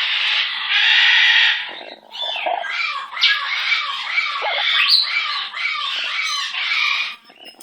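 Pet parrot giving a harsh squawk lasting nearly two seconds, then a long run of rapid chattering, chuckling calls with quick rises and falls in pitch.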